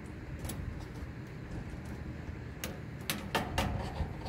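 Wrenches clicking and clinking against a steel motor plate and bolt as the motor's mounting bolt is tightened: a single click about half a second in, then a quick irregular run of sharp metallic clicks in the last second and a half, over a steady low rumble.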